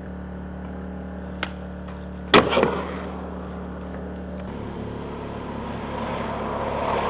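Skateboard coming down on a concrete bowl after an air: one loud sharp impact of wheels and deck on the concrete a little over two seconds in, with a short rattling roll after it. A small click comes about a second before it.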